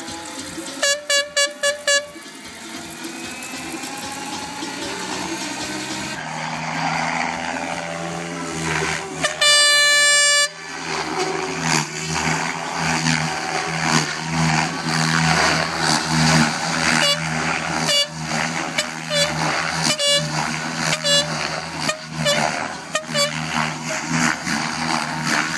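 Party music playing over a PA with air horn blasts: five quick toots about a second in and one long blast about ten seconds in. After the long blast the music carries on with a steady beat.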